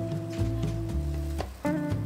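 Instrumental music: held notes over a steady bass line with light ticking percussion, briefly dropping out about a second and a half in.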